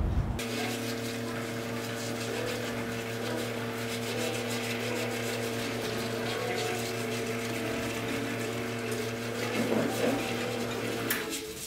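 Espresso machine pump running with a steady hum and water hiss as a shot is pulled, starting about half a second in and cutting off near the end, with a brief noise just before it stops.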